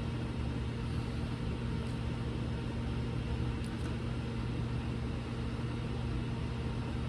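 Steady hum of running equipment, with an even low droning tone over a light hiss.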